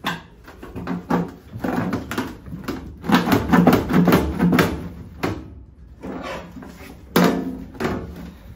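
Thin sheet metal being pried and peeled back from a heavy concrete-filled cabinet with a pry bar: a run of creaking, scraping and crunching bursts, busiest about three to five seconds in, with a sharp new one about seven seconds in.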